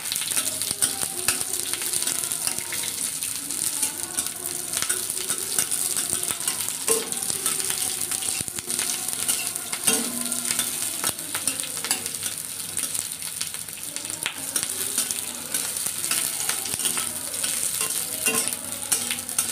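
Cubed onion pieces sizzling and crackling in hot refined oil in a kadhai as they are lightly fried, stirred with a metal spatula whose scrapes and taps on the pan come through as frequent small clicks.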